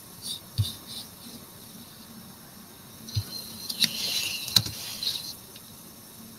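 Faint chirping insects with a few soft clicks and low taps.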